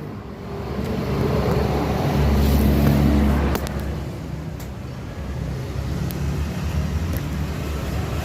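Road traffic with a vehicle engine running close by; the rumble swells for a second or so a couple of seconds in, then settles to a steady drone.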